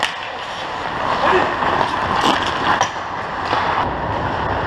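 Ice hockey play around the goal: skate blades scraping on the ice, with several sharp knocks of sticks and puck.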